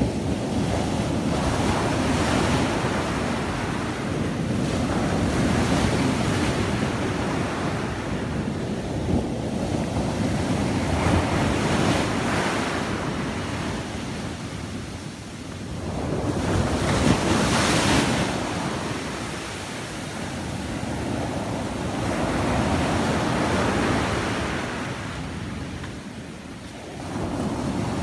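Surf breaking on a sandy beach and washing up the shore, swelling and easing with each wave; the loudest break comes about two thirds of the way through. Wind rumbles on the microphone underneath.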